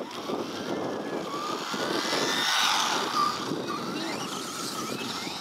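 Radio-controlled buggy driving fast past on a paved path, its motor whine rising and then falling in pitch as it goes by, loudest about halfway through.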